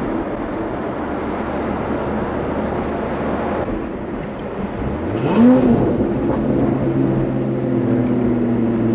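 Lotus Emira's supercharged V6, heard from inside the cabin, cruising with tyre and road noise. About five seconds in a short rev blip rises and falls as the manual gearbox is shifted down from third to second. After it the engine runs steadily at slightly higher revs as the car slows.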